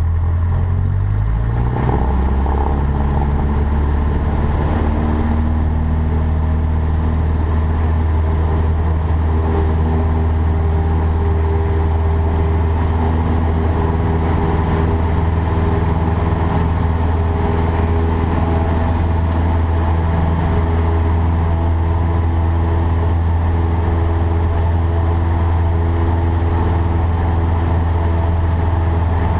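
Cessna 152's four-cylinder Lycoming engine and propeller running steadily, heard in the cockpit as a loud low drone; the engine note shifts about a second or two in, then holds.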